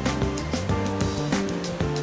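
Background music with a steady beat: sustained tones over regular percussive hits.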